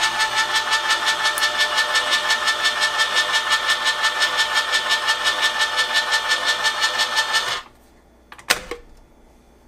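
Hamilton Beach Smooth Touch electric can opener's motor running as it turns and cuts a can, a steady whine with an even pulsing. It stops abruptly about seven and a half seconds in, and a single click follows about a second later.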